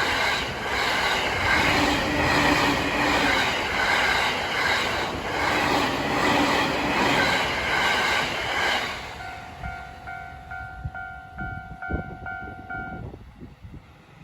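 A commuter train passing a level crossing at speed, its wheels clattering in a steady rhythm over the rail joints for about nine seconds. As it clears, the crossing's electronic warning bell is heard ringing in a pulsing two-tone pattern, and it stops about four seconds later as the crossing clears.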